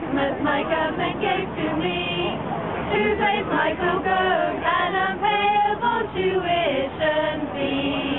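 A small group of carolers singing a carol together unaccompanied, mostly women's voices, with long held notes.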